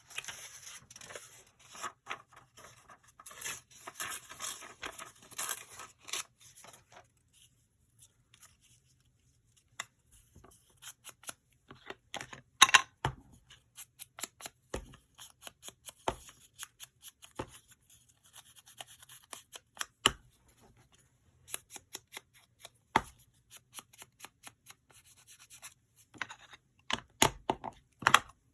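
Paper being handled and rustled for the first several seconds, then scattered sharp clicks and snips of small scissors cutting paper. One loud click comes about twelve seconds in, and a quick run of clicks near the end.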